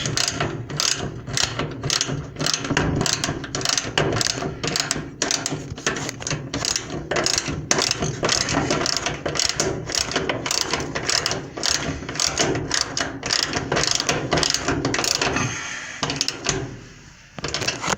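Socket ratchet wrench with a 10 mm socket clicking rapidly as it tightens the fastener holding the sensor on the dryer's belt tensioner. The clicking stops a couple of seconds before the end.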